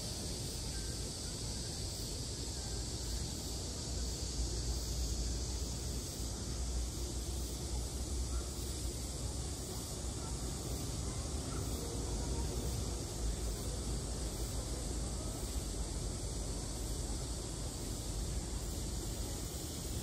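Steady high buzzing of a cicada chorus, unbroken throughout, over a low rumble.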